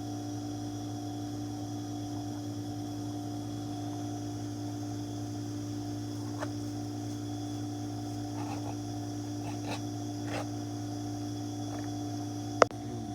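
Steady electrical hum with a few faint ticks, then one sharp click near the end.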